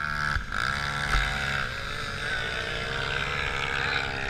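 Engine of an off-road vehicle running close by as it rides across sand dunes; its pitch rises about half a second in, then holds fairly steady with small changes in throttle.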